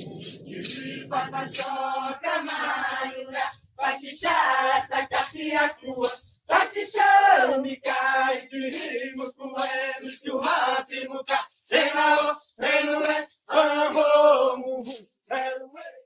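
Indigenous group chant: voices singing together with rattles shaken on the beat, a little over two beats a second, accompanying a circle dance.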